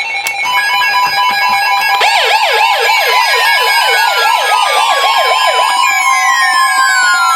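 Electronic emergency alert tones announcing a new warning: several steady high tones layered with a siren-like warble that rises and falls about four times a second, starting about two seconds in and stopping about two seconds before the end, along with slow falling glides.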